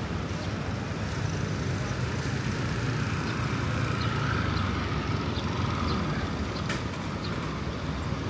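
Street ambience of steady road traffic, a continuous low rumble of passing vehicles, with faint voices in the background.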